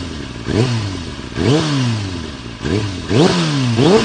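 Motorcycle engine being revved in a series of quick throttle blips, each rising sharply in pitch and falling back, about six in all, coming faster near the end.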